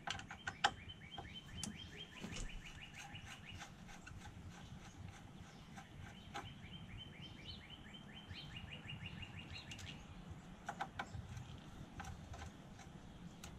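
A songbird trilling twice, each trill a run of quick, even notes lasting about three and a half seconds, the second starting a few seconds after the first ends. A few sharp clicks from screwdriver work on a battery terminal come in between, the loudest under a second in.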